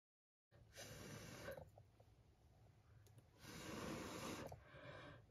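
A person breathing softly close to the microphone: three quiet breaths about two seconds apart, starting about half a second in.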